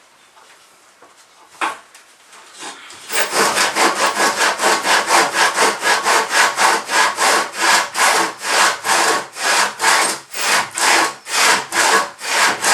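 Hand saw cutting wood with steady back-and-forth strokes, about three a second, starting about three seconds in after a single knock.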